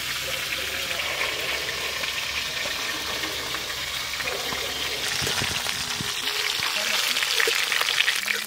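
Hot oil sizzling in a wok, a steady frying hiss that grows louder and more crackly near the end.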